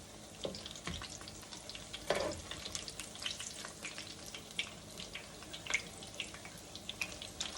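Battered cauliflower deep-frying in hot oil in a skillet: a steady sizzle with many small pops and crackles, and one brief louder sound about two seconds in.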